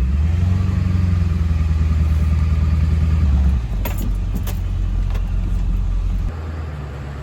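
Ford F350 pickup truck running with a steady low rumble as it drives slowly along a narrow trail; the rumble eases about three and a half seconds in. A couple of sharp clicks or rattles come about four seconds in.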